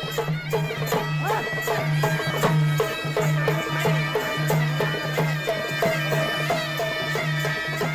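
Village folk music: drums beaten in a quick, steady rhythm under a reedy melody, held over a steady low drone.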